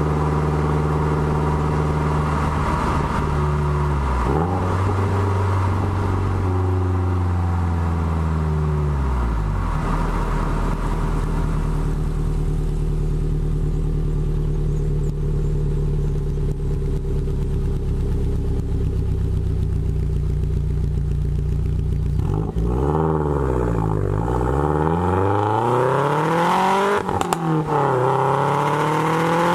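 2013 Subaru WRX's turbocharged 2.5-litre flat-four heard at the exhaust tips through a Maddad turboback exhaust with Killer B equal-length headers. The engine note holds steady for long stretches, drops in pitch once about a third of the way in, and near the end swings repeatedly down and up as the revs rise and fall.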